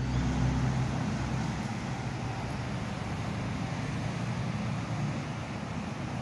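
A B2-class tram standing at a stop, heard from the front of the tram: a steady hum with low tones over a hiss. A deeper low rumble fades out about a second and a half in.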